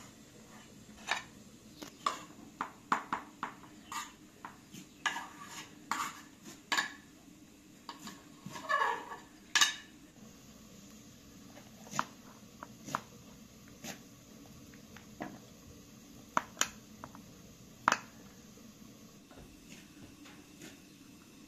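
Irregular clinks and knocks of kitchen utensils against dishes and pots, busy for the first half and sparser later, with a brief scrape about nine seconds in.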